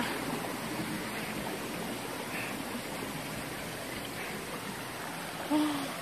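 Steady rush of water flowing over rocks in a shallow stream. A brief voice sound comes in near the end.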